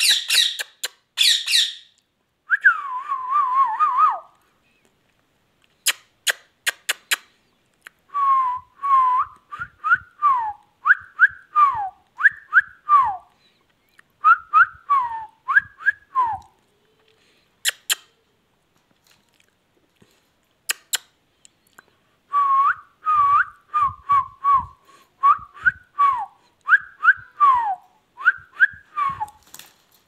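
Indian ringneck parakeet whistling in several bursts of quick whistled notes, many falling in pitch, with sharp clicks between the phrases.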